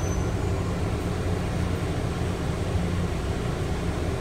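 Steady low rumble of a rubber-tyred automated people mover running along its guideway, heard from inside the car.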